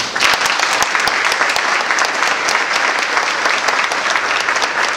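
Audience applauding, a steady round of clapping that starts suddenly.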